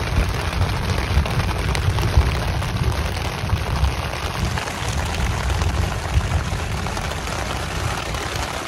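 Heavy rain drumming steadily on the tent's fabric, heard from inside the tent, with wind buffeting the tent in an uneven low rumble.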